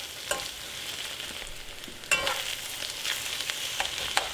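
Beef, garlic and eggs sizzling in a hot pan as they are stir-fried, with a utensil scraping and knocking against the pan now and then, the loudest knock about two seconds in.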